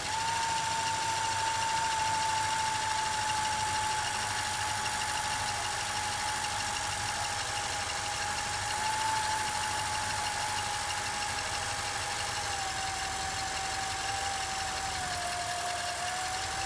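Industrial sewing machine running steadily at speed with the pedal held down, winding thread onto the bobbin. It makes an even, steady tone that dips slightly near the end.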